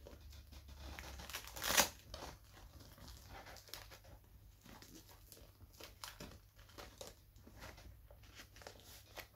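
Rustling and scraping of a fitted seat cover being pulled and tugged tight over a car headrest, with one louder scrape about two seconds in.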